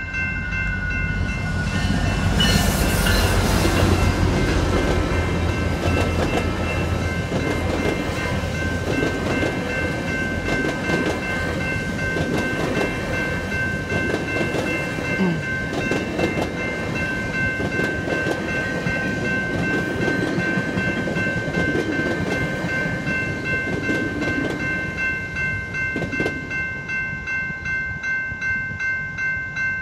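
GO Transit commuter train passing a level crossing. The diesel locomotive goes by loudest about two to four seconds in, then the bilevel coaches run past with wheels clicking over the rails. The crossing's warning bell rings throughout, and near the end the train noise fades and the pulsing bell is left.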